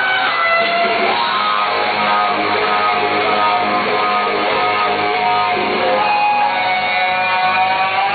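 Live rock band playing loud, with an electric guitar lead of long held notes, some bent in pitch, over the rhythm section.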